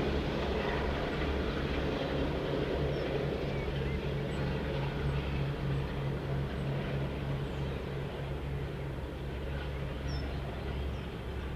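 Diesel engines of a convoy of locomotives (Class 52 D1015, Class 37 37219, Class 40 40106 and Class 50 50007) running under power with a steady low drone that slowly fades as the train draws away. Faint bird chirps sound now and then.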